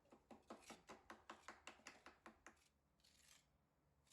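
Faint, quick scraping strokes of a hand trowel working rapid-setting cement patching mortar into voids in a concrete slab, about five strokes a second, then one softer scrape near the end.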